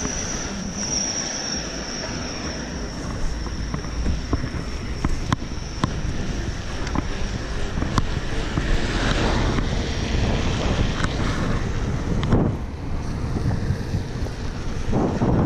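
Wind rushing over the microphone of a camera on a bicycle going downhill on asphalt, swelling in gusts midway and near the end, with a few sharp clicks from the bike. A thin high whine fades out in the first couple of seconds.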